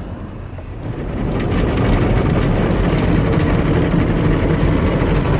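Automatic car wash heard from inside the car: rotating brushes and water spray scrubbing against the windows and body. It makes a loud, steady noise that swells up about a second in.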